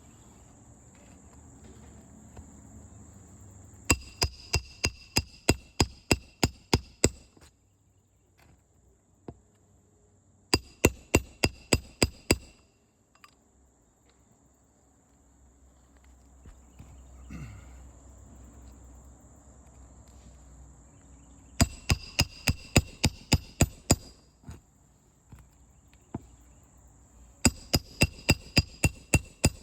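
Roofing hammer driving nails into asphalt shingles: four quick runs of rapid blows, each strike ringing slightly, with pauses between. A steady high insect trill continues in the background.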